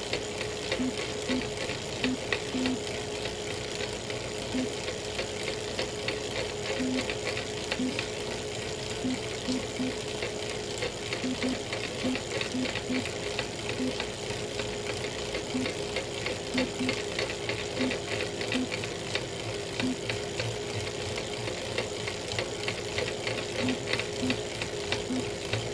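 Elite Real Turbo Muin B+ bike trainer running under pedalling: a steady whine with short, irregular cracking clicks throughout, the cracking noise this trainer makes at any cadence once power goes over about 200 watts.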